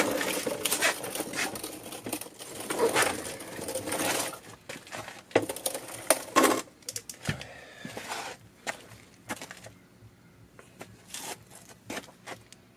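Scraping and clunking as a bare M54 engine is shifted and tilted up on a mechanic's creeper, followed by a few sharp metal knocks about five to six and a half seconds in and scattered light clicks near the end.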